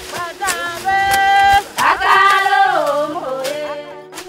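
A woman's singing voice holding long, bending notes over steady sustained backing tones, with a few sharp percussive hits: music.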